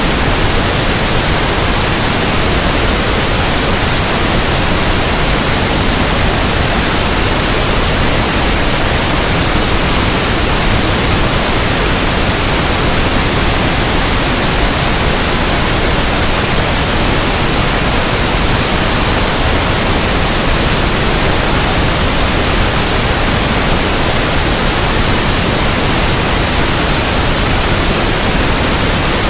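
Continuous pink noise: a steady, even hiss across the whole range of pitch, unchanging in level.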